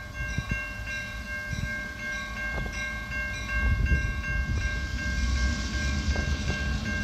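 Level-crossing warning bell ringing steadily while a freight train approaches, with a low rumble that grows louder about halfway through.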